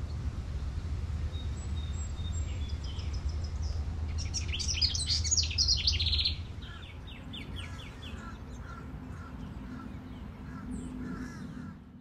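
Wild birds calling: thin high notes at first, then a burst of loud, harsh chirps about four to six seconds in, followed by a run of softer repeated notes. A low rumble runs underneath and stops about six seconds in.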